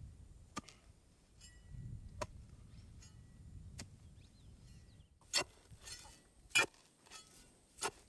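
A hand digging tool chopping into the ground in a steady rhythm, about six strikes each a second or so apart. The last three strikes are much louder.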